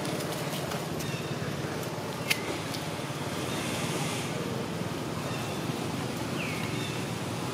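Steady outdoor background noise with no clear single source. Over it come a sharp high chirp about two seconds in and a short, falling high-pitched squeak near the end.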